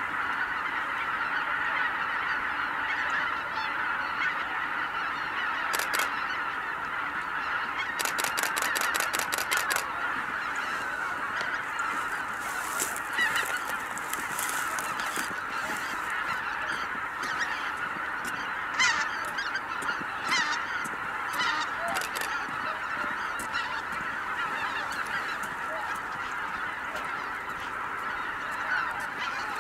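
A large flock of greater white-fronted geese calling in flight: a dense, unbroken chorus of overlapping honks. A rapid train of clicks sounds about eight seconds in and lasts about two seconds.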